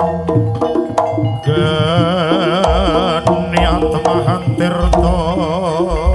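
Jaranan gamelan music: hand-drum strokes and struck metal notes, joined about a second and a half in by a loud, wavering, sustained melody line.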